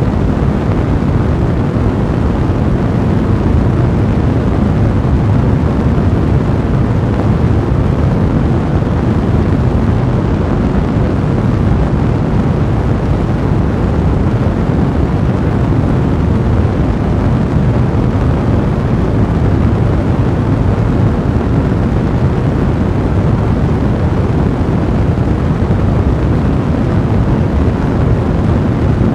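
A fire blazing: a steady, low rumble of flames that stays even throughout.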